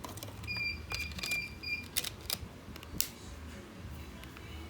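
Small plastic clicks and taps from a keypad mobile phone being handled, with four short high beeps in a row between about half a second and two seconds in.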